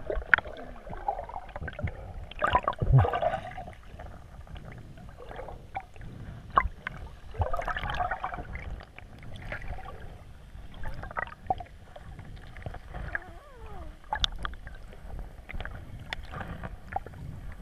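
Muffled water sound heard through the submerged camera: sloshing and gurgling with scattered small clicks and knocks and a few louder swells.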